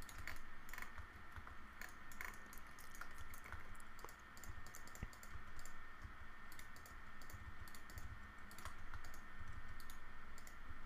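Computer keyboard keys tapped at irregular intervals while shortcuts are entered, each a short sharp click, over a faint steady high hum.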